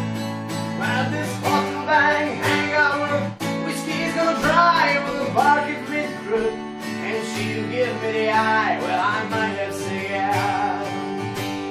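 Steel-string acoustic guitar strummed steadily, with a man's voice singing a melody line over it from about a second in.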